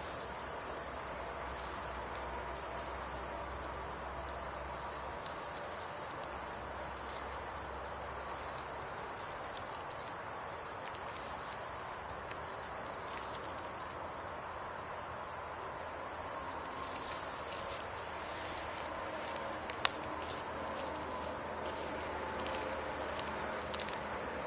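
Steady, high-pitched chorus of late-summer insects, like crickets, in the woods. Faint ticks come in the second half, with one sharp click about twenty seconds in.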